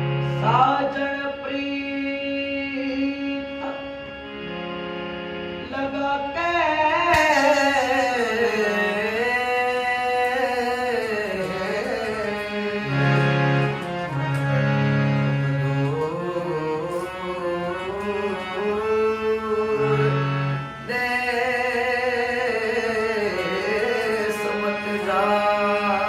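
Indian folk song performance: a long, gliding sung melody over steady held accompaniment notes, the voice growing strong about six seconds in.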